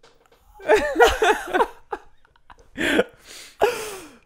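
Men laughing: a quick run of ha-ha laughs about a second in, then two breathy laughs falling in pitch near the end.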